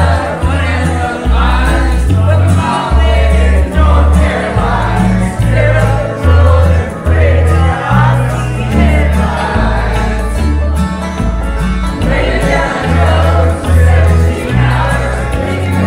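Several people singing karaoke together into microphones over a loud backing track with a steady, stepping bass line.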